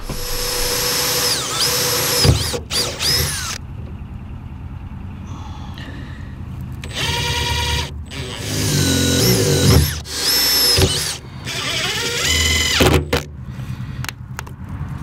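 Cordless drill drilling holes into the steel hull side of a narrowboat to fit a diesel heater air inlet, in several bursts, the motor speeding up and slowing between them.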